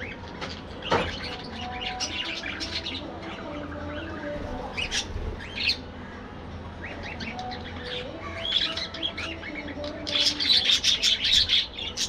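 A flock of budgerigars chirping, with many short high calls overlapping and a dense, louder run of chirping near the end.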